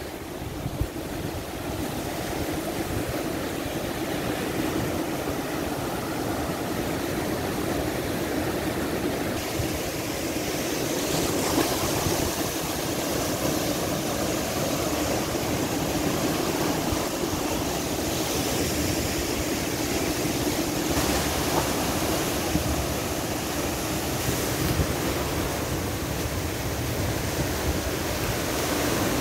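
Sea waves breaking and washing in over a rocky shore: a steady rushing of surf, with strong wind buffeting the microphone as a low rumble underneath.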